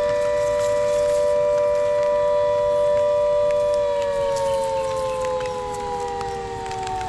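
Dam warning siren wailing on a steady pitch, then starting to slide slowly down in pitch about four seconds in. It is the warning that water is being let out through the dam.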